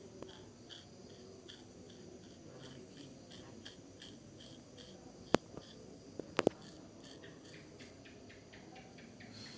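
Barber's scissors snipping hair in a steady rhythm, about two to three short snips a second, with a few louder sharp clicks about five and a half and six and a half seconds in.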